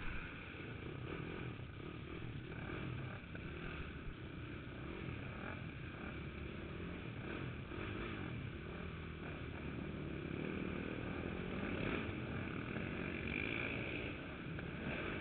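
Dirt bike engine running hard and revving up and down as the rider works the throttle, heard from a camera strapped to the rider's chest.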